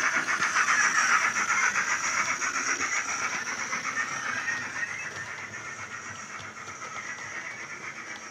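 Sound-fitted model of a GCR 9N / LNER A5 tank locomotive, its steam sound file played from a DCC sound decoder through a small thin tablet speaker: rapid chuffs with steam hiss as the model runs past, fading as it draws away.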